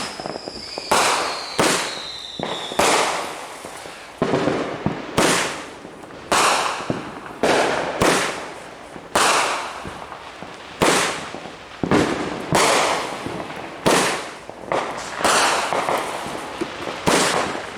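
Consumer multi-shot fireworks cake firing shot after shot: sharp bangs about one a second, each trailing off, with a falling whistle in the first three seconds.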